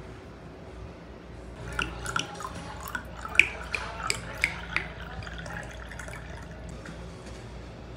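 A quick, irregular run of about a dozen light taps or drip-like ticks over about three seconds, starting a second and a half in, the loudest near the middle, over a faint steady hum.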